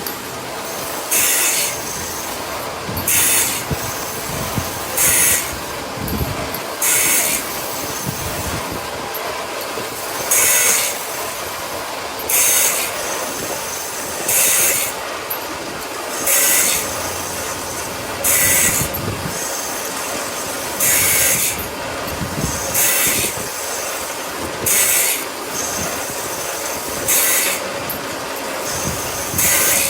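Factory machinery working in a repeating cycle: a short, high hiss or screech about every two seconds over a steady machine noise.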